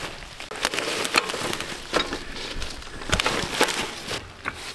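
Irregular metallic clicks and knocks of an off-road jack being worked to lift a truck.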